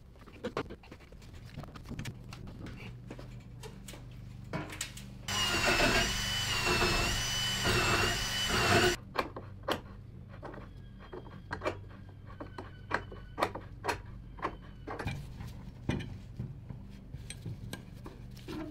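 Cordless drill running for about four seconds near the middle, its whine rising and falling with the trigger as it drives a screw into a hull plank. Around it come scattered clicks and knocks of bar clamps being set and tightened on the planking.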